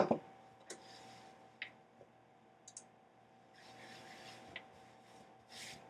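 A sharp knock right at the start, then a few faint scattered clicks and taps with soft rustling: small objects being handled. A faint steady hum runs underneath.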